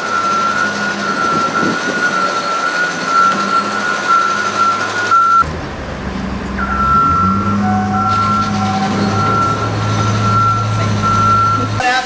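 Construction machinery running steadily, a low engine hum with a steady high whine over it; the hum drops and shifts about halfway through.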